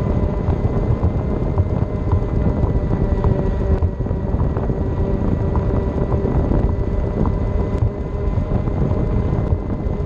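Tyre rumble on a concrete path with a steady, even whine from the ride's electric motor. Small ticks here and there over the rolling noise.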